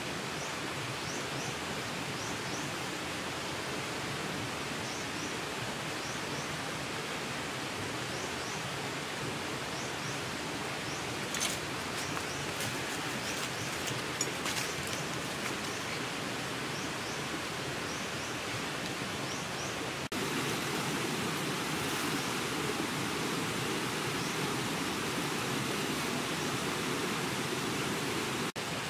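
Steady forest ambience: an even rushing hiss with a faint high chirp repeating about once a second, from an insect or bird. A few light crackles of leaf litter come near the middle as mushrooms are picked, and the hiss turns a little louder and fuller about two-thirds through.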